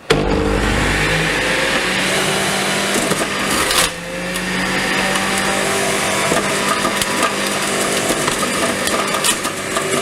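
Electric centrifugal juicer switched on and running at its low speed, shredding purple carrots as they are pushed down the feed chute. It starts suddenly and runs steadily, dipping briefly about four seconds in.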